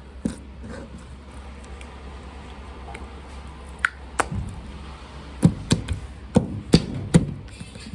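Sharp knocks: a few scattered early on, then a run of about six at roughly half-second intervals in the second half, over a low steady hum.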